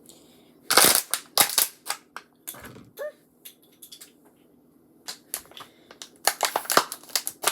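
Thin plastic water bottle crackling and crinkling as it is handled, in two bursts of crackles with a quiet stretch between.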